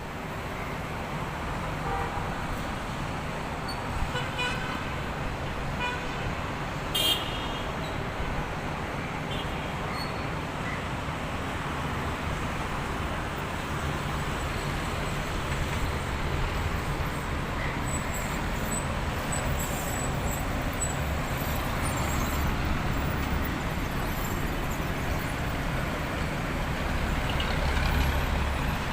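Steady road traffic noise with a couple of short vehicle horn toots, the clearest about seven seconds in.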